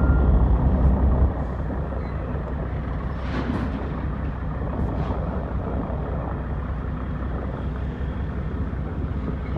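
Heavy diesel dump truck engine idling, a deep steady rumble that is a little louder for the first second or so.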